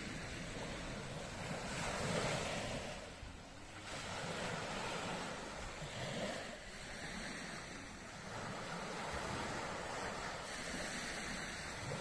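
Sea surf: waves breaking and washing up the shore, the sound swelling and easing every few seconds.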